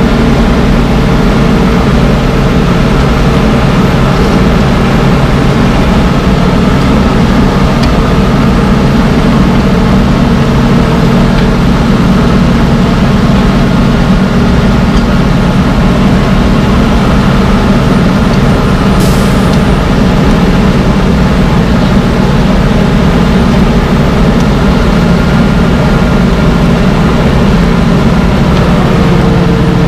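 Wirtgen W1200F cold asphalt milling machine at work, its diesel engine running loud and steady under load as it creeps forward stripping the road surface. A short hiss about two-thirds of the way in.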